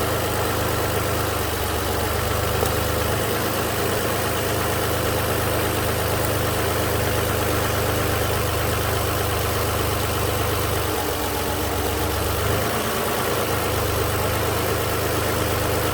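2008 Toyota RAV4's 3.5-litre V6 idling with an ignition coil unplugged, during a test for a misfire on cylinders two and four. The low engine hum wavers, dipping and recovering a couple of times, and the engine seems to be running better with the coil off.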